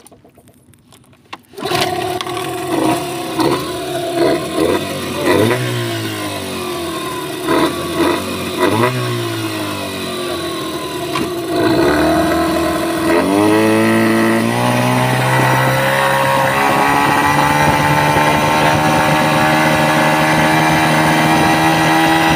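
Freshly serviced Yamaha outboard motor catching on a pull-start about a second and a half in. It then idles with a string of quick throttle blips. Later it is opened up, its pitch climbing, and it settles into steady fast running as the boat gets underway.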